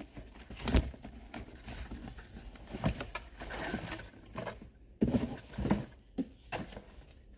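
Hands unpacking a subscription box: irregular rustling of packaging with several short knocks as things are handled and moved.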